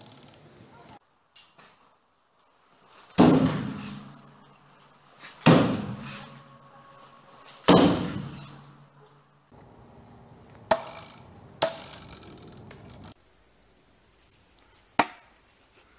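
Thrown vz. 58 military bayonets striking wooden targets: six sharp thuds, the first three loud and about two seconds apart, each with an echoing tail, then two a second apart and a last one near the end.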